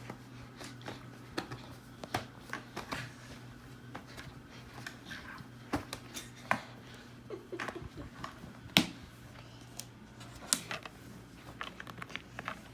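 Plastic LEGO pieces clicking and clattering as they are handled and pressed together, an irregular run of sharp little clicks and knocks, with two louder snaps near the middle and after it.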